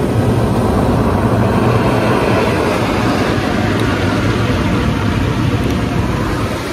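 Hydromassage bed running: a loud, steady rumble with a constant hum from its pump and water jets.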